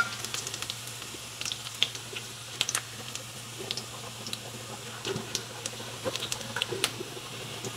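Hot oil sizzling in a pan after frying sliced shallots, with scattered sharp crackles and pops throughout, and a brief louder click at the very start.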